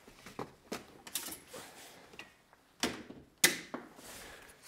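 Workshop handling sounds: a series of separate knocks and clatters of wood and tools being picked up and set down, the loudest knock about three and a half seconds in.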